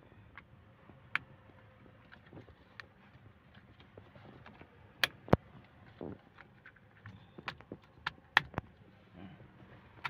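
Hands handling a car's steering-column clock spring (spiral cable) and its plastic trim: scattered light plastic clicks and taps. Two sharp clicks come about five seconds in and another pair near the end.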